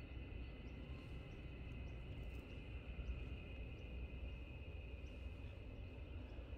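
Quiet outdoor ambience by calm water: a steady low rumble with a faint, steady high-pitched hum over it and a few faint, scattered ticks or chirps.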